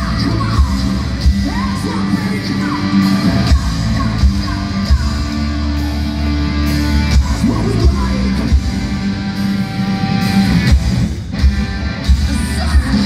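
Hard rock band playing live, with distorted electric guitars, bass, drums and a singer, heard from within the audience in a large hall.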